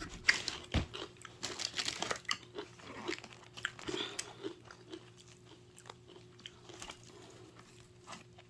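Close-up chewing of pizza: crunching crust and many small wet mouth clicks, thick in the first few seconds and thinning out after about four seconds.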